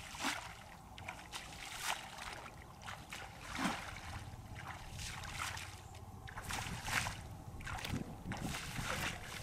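Footsteps wading through shallow water in flooded grass: an uneven series of splashes and swishes, about one a second.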